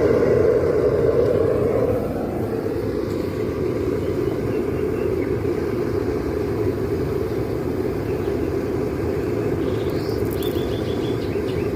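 Steady low rumbling noise, louder for the first two seconds and then even, with a few short high chirps about ten seconds in.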